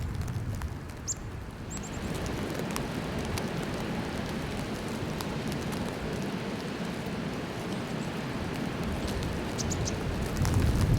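Steady hiss of blizzard wind and blowing snow, with low wind rumble on the microphone that builds near the end. A few short, high bird chips come in near the start and again near the end.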